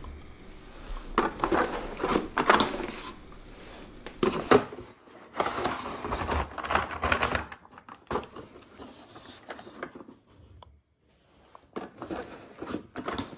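Cardboard box and packaging of a plastic dog puzzle toy being handled and crinkled as the toy is worked out of it, a run of rustling and scraping noises, then quieter with a few light taps after about eight seconds.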